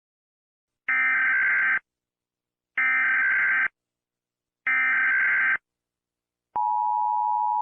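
Emergency Alert System broadcast opening: three identical SAME header data bursts, each just under a second long with about a second between them, then the steady two-tone EAS attention signal starting about six and a half seconds in.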